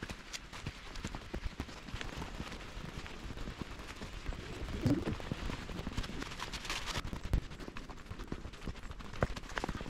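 Footsteps on a dirt trail strewn with dry fallen leaves, a steady run of small irregular crunches and clicks.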